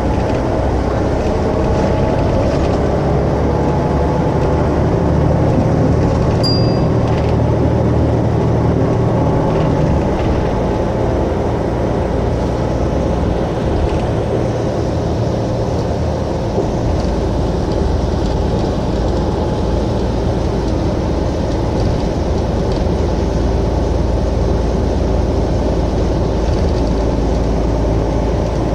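Mercedes-Benz O405 N2 city bus's rear-mounted engine idling steadily while the bus stands still. Its deep note shifts a little about ten seconds in and again around sixteen seconds, and there is one short click with a brief high beep about six seconds in.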